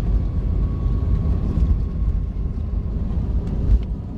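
Cabin noise inside a jet airliner during landing: a steady low rumble of engines and airflow, with a faint steady whine and a low thump near the end.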